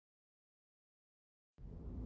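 Dead silence, then faint room tone with a low steady hum starting abruptly about a second and a half in.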